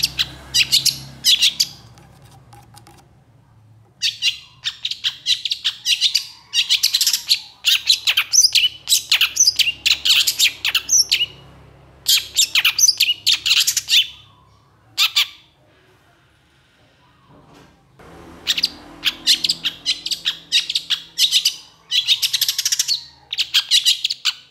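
Long-tailed shrike (pentet) singing in agitated, rapid runs of harsh, chattering notes. It sings a short run at the start, then long runs, with a pause of about two seconds early on and another of about three seconds past the middle.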